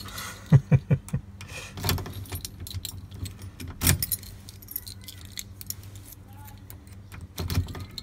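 A bunch of keys on a keyring jangling and clinking in the hand as they are sorted, with several sharp clinks.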